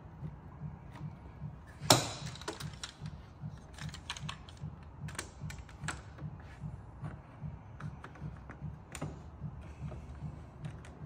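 DeWalt one-handed trigger bar clamps being tightened on a servo motor: irregular sharp clicks as the trigger is worked, with one louder knock about two seconds in. A low hum pulses underneath about three times a second.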